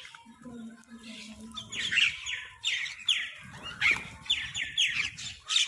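Crows cawing, a run of short harsh calls one after another, busiest in the second half: several crows squabbling over food.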